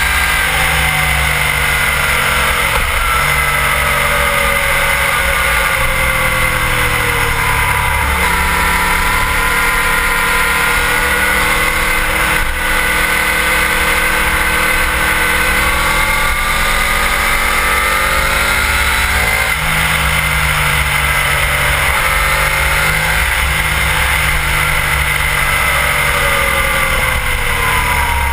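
Sport motorcycle engine at speed on a racetrack, its pitch rising and falling through the corners with a few sudden jumps where gears change, under heavy wind rumble on the bike-mounted camera's microphone.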